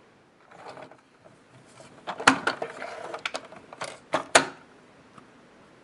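Hard plastic toy vehicles being handled on a wooden table: a soft rustle about a second in, then a run of sharp plastic clicks and knocks, loudest about two seconds in and again near four and a half seconds.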